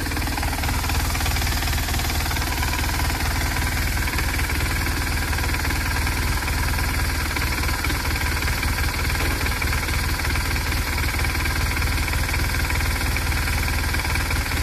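BMW R1200R boxer flat-twin engine running steadily at idle with a rapid, even knocking clatter: the bad engine noise that marks a mechanical fault.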